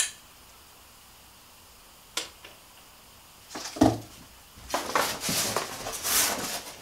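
Unboxing sounds: a few knocks and a heavy thump as the machine's metal stand column is set down, then cardboard box packing rustling and scraping as a packing sheet is pulled out.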